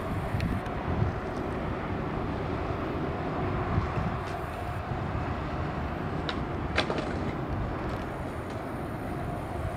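Steady low rumble of city noise by a river at night, with two short, sharp clicks about six and seven seconds in.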